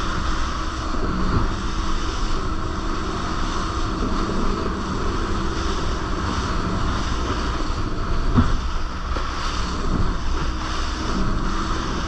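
Motorboat running at speed on open sea: a steady engine drone under the rush of hull wash and spray, with wind buffeting the microphone. A single thump comes about two-thirds of the way through.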